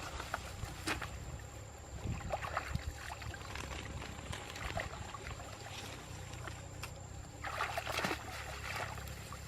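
Water splashing and sloshing in irregular bursts, as from wading or handling a fishing net in shallow water, with the loudest burst near the end.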